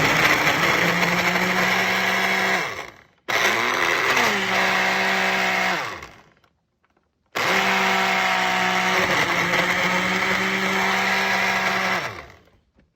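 Countertop blender blending a milkshake in three runs. The motor whines up to speed, runs steadily and winds down, stopping twice briefly before the last run cuts out near the end. Pretty loud.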